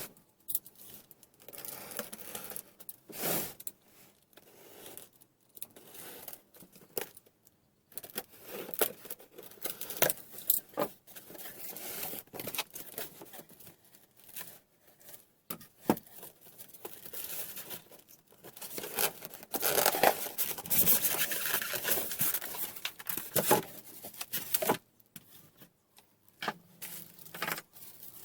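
Packaging being torn and rustled as a circular saw and its parts are unpacked from the box, with irregular crinkling and short knocks and scrapes of items being handled. The longest, loudest stretch of rustling comes a little past the middle.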